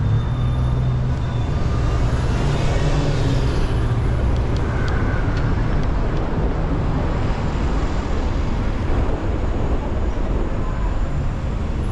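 Steady low rumble of a car driving on city streets, with surrounding traffic noise; a brighter hiss swells and fades about three seconds in, as of another vehicle going by.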